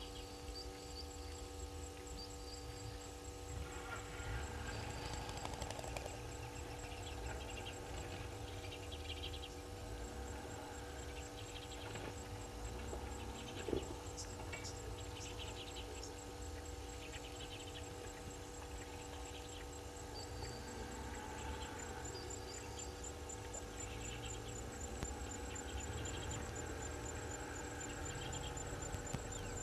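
Outdoor bush ambience through a fixed camera's microphone, under a steady electrical hum. There is a low rumble, scattered faint soft chirps, and a faint, high, rapid pulsing throughout.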